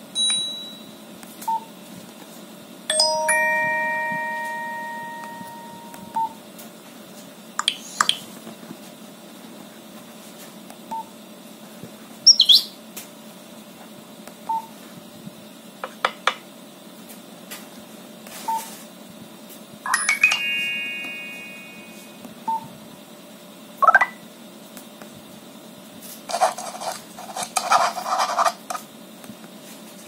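A Nokia Asha 210 phone previewing its built-in message alert tones one after another as the tone list is scrolled: a series of different short chimes and jingles, each a second or two long, with a short single beep between several of them. One near the end is noisier and more of a rattle than a chime.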